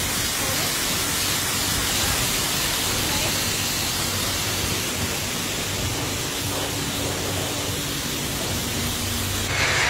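Car-wash pressure-washer wand spraying a high-pressure water jet onto a car's hood, a steady hiss of water rinsing off the soap.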